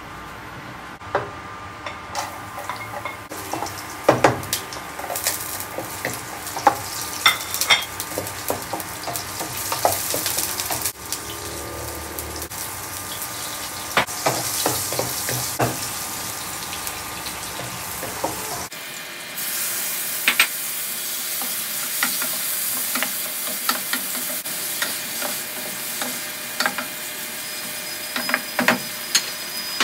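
Garlic and onion, then pieces of pork liver, sizzling in oil in a nonstick pan while a wooden spatula stirs, with frequent clicks and scrapes against the pan. The sizzle gets louder about two-thirds of the way through.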